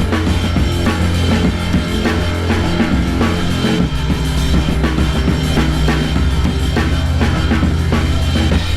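Rock-style backing music with a steady drum-kit beat over a heavy, sustained bass.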